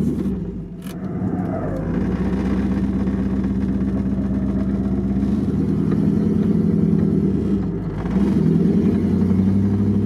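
Off-road vehicle's engine running steadily at low revs, heard from inside the cab, with the exhaust right under the driver's seat causing a strong vibration. The engine note dips briefly about half a second in and again about eight seconds in.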